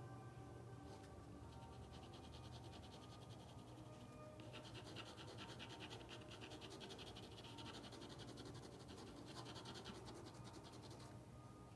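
Quick, repeated scratchy strokes of a drawing or painting tool on paper. They start about a second in, grow busier and louder from about four seconds, and stop shortly before the end.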